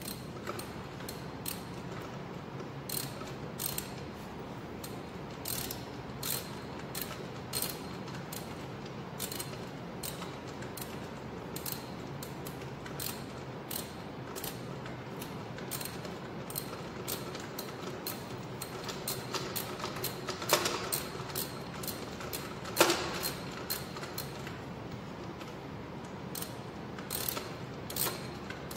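Small hand ratchet clicking in short irregular runs as it turns a bolt on an engine's water inlet connection. Two louder metallic clacks come about two-thirds of the way through.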